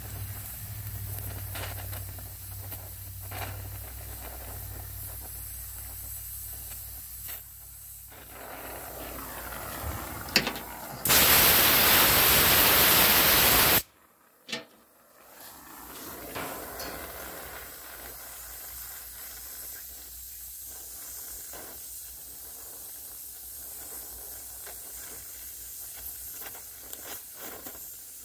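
Gas-welding torch flame hissing steadily. About ten seconds in there is a sharp pop, then a much louder rush of gas for about three seconds that cuts off abruptly as the torch is shut off. After a short quiet the flame hisses steadily again from about sixteen seconds.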